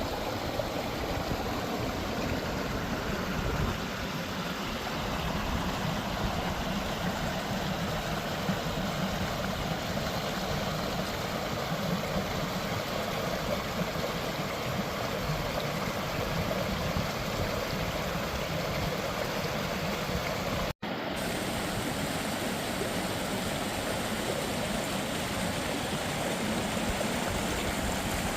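Forest stream flowing with a steady rush of water. It breaks off for an instant about two-thirds of the way through, then carries on unchanged.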